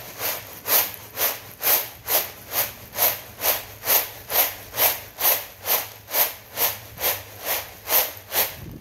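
Roasted coffee beans rattling and sliding across a woven bamboo winnowing tray, tossed in a steady rhythm about twice a second to shake the chaff loose from the beans.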